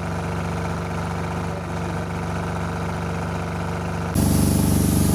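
Diesel generator and the air compressor it powers running steadily; the sound jumps suddenly louder about four seconds in.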